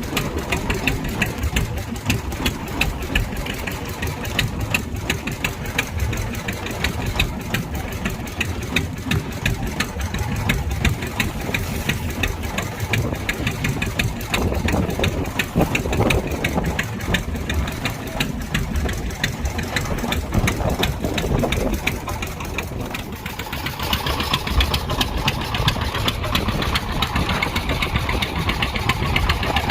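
Fishing boat's engine running steadily with a fast, even beat. About 24 seconds in, a rushing hiss rises over it.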